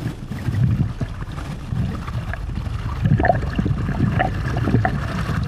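Lake water rushing and splashing against an inflatable towable tube as it is pulled along, with wind buffeting the tube-mounted camera as an uneven low rumble.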